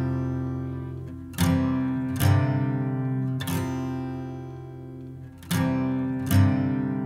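Background music: an acoustic guitar strumming slow chords, each chord struck and left to ring and fade before the next.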